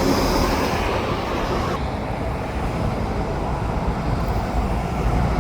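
Steady road traffic noise: a continuous low rumble of passing vehicles. A brighter hiss cuts off about two seconds in.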